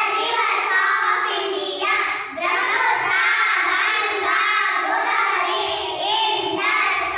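A group of young girls chanting together in unison, a sing-song choral recitation of a memorised list.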